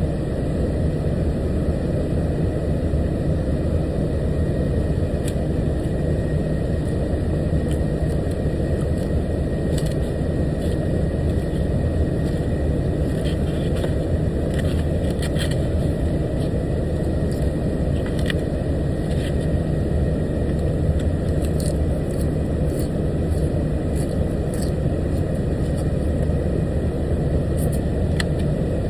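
Steady engine and road noise heard from inside a moving vehicle's cab, with a few faint clicks.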